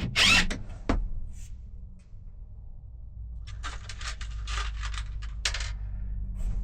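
Small metal hardware clattering as it is handled: a sharp clatter near the start, then a run of quick clinks and ticks a few seconds in.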